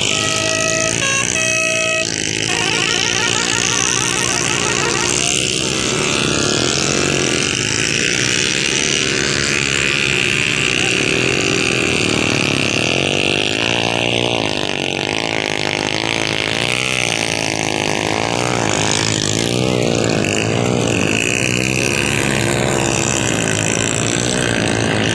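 Motorcycle and tractor engines running and revving, the pitch wavering up and down, strongest about halfway through. A vehicle horn honks in short blasts in the first couple of seconds.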